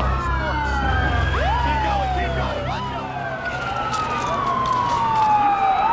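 Several emergency-vehicle sirens sounding at once, their wailing tones overlapping as they rise and fall. One sweeps up quickly and falls away slowly twice in the first few seconds, and another falls slowly and climbs again near the end, over a low rumble in the first half.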